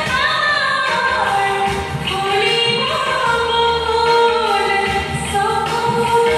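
Recorded Assamese song: a woman sings long, gliding melodic lines over instrumental accompaniment.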